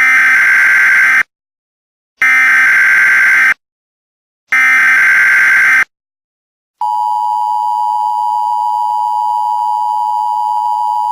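Emergency Alert System signal: three bursts of buzzing SAME header data about a second apart, then, about seven seconds in, the steady two-tone EAS attention tone.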